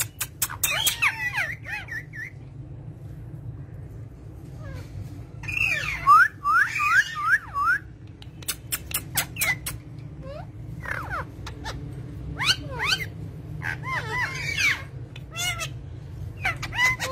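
Parrot chattering in repeated bursts of quick rising and falling squawks and chirps with sharp clicks between them, over a steady low hum.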